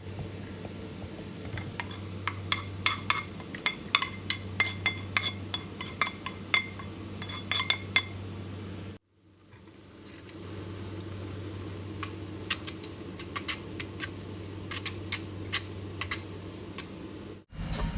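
Metal utensils clinking repeatedly against dishes and cookware, with sharp ringing clinks over a steady low hum. The sound cuts out abruptly about nine seconds in, then the clinking resumes.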